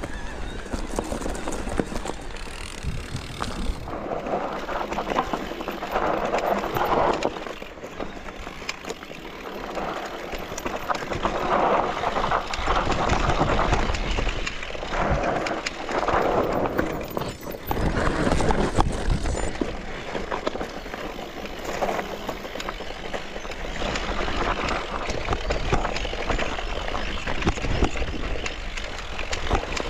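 Mountain bike riding down a dirt trail: tyre noise over dirt and stones, with frequent clicks and rattles from the bike. Wind rumbles on the microphone throughout.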